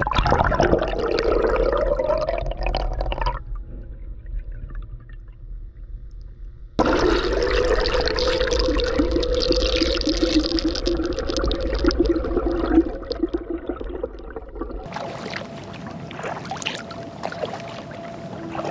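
Kayak paddle strokes dipping and splashing in lake water, over a steady low wind rumble. The sound changes abruptly about three, seven and fifteen seconds in.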